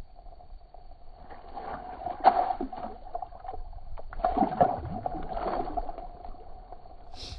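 Water sloshing and splashing in an ice-fishing hole as a large bluegill is let go into it, in two short bouts with a sharp knock in the first.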